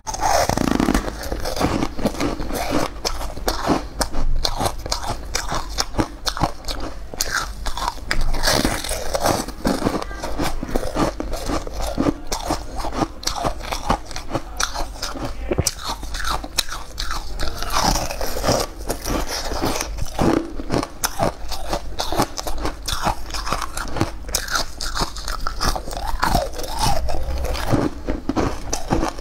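Close-miked crunching and chewing of a frozen ice treat: dense, crackly crunches from bites, followed by chewing, going on almost without a break.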